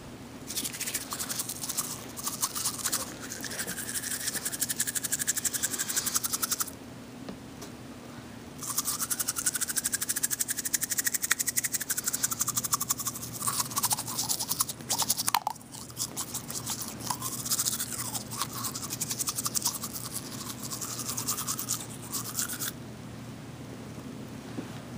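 Rapid scratchy brushing or scrubbing strokes in two long runs, with a pause of about two seconds around seven seconds in.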